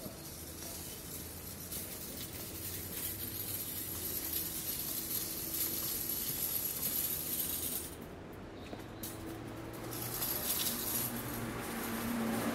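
City street ambience on a busy avenue: a steady hiss of traffic that swells, drops away briefly about two-thirds of the way through, and swells again.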